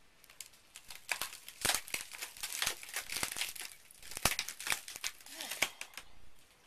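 Fibreglass cracking and tearing in an irregular run of sharp cracks as a waterlogged pontoon is wrenched off the top of a small homemade boat.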